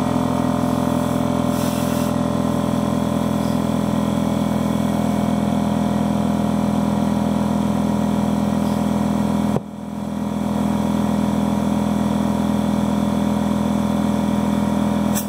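Air compressor running steadily to inflate a tire and seat its bead, a constant low motor hum. The sound drops suddenly about two-thirds of the way through and builds back up over a second.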